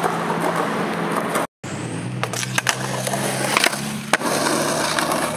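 Skateboard wheels rolling on rough concrete, broken by a short total dropout about a second and a half in. After it come several sharp clacks of the board, the loudest just after four seconds in as an ollie over a concrete slab lands.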